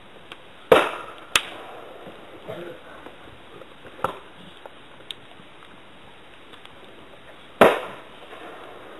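A few sharp bangs at uneven intervals, two close together about a second in, one about four seconds in and one near the end, each dying away quickly.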